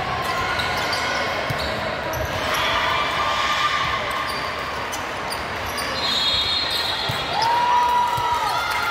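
Indoor volleyball rally echoing in a gym: the ball being struck and landing in sharp knocks, short high squeaks from shoes on the hardwood court, and voices calling in the background.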